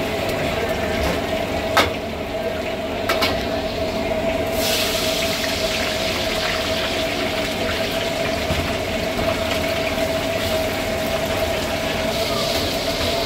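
Food deep-frying in a kadai of hot oil: a loud sizzle cuts in suddenly about four and a half seconds in and keeps going, after two sharp metal clinks of the slotted spoon against the pan. A steady hum runs underneath.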